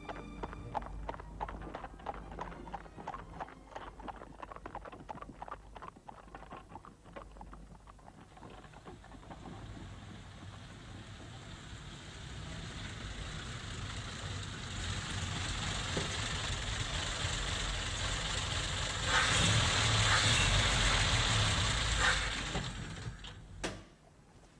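Horse's hooves clip-clopping, then a vintage Rolls-Royce motor car coming in with its engine growing steadily louder. The engine cuts off suddenly near the end, followed by a single click.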